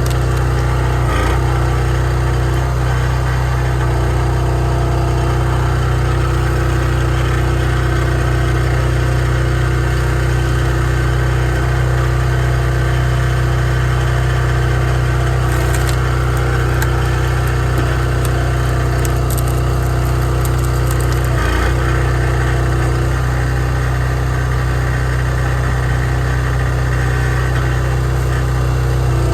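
Wolfe Ridge log splitter's engine running at a steady speed, with brief dips about a second in and again about 21 seconds in.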